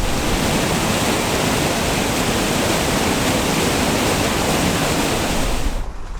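Rushing mountain stream: a steady, loud hiss of water that begins and cuts off abruptly.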